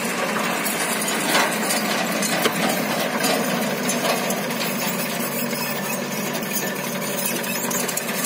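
JCB backhoe loader's diesel engine running steadily under load as it digs and lifts soil, with a couple of short knocks about one and a half and two and a half seconds in.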